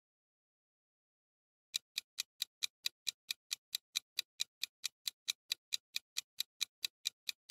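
Clock-tick sound effect of a quiz countdown timer: sharp, evenly spaced ticks at about four or five a second, starting nearly two seconds in.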